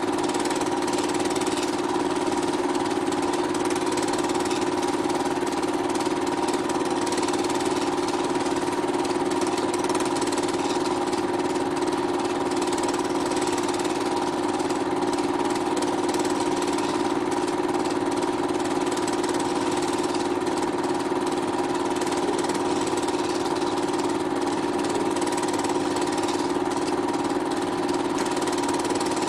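Film projector motor running with a steady whirring hum and hiss, unchanging throughout.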